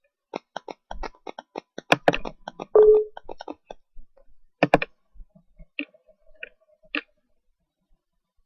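Computer keyboard and mouse clicks: a fast run of clicks for about three seconds, a tight cluster a little later, then a few scattered clicks. A short low tone sounds around three seconds in.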